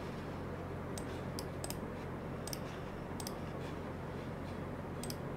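Quiet room tone with a steady low electrical hum, broken by about six faint, irregularly spaced clicks.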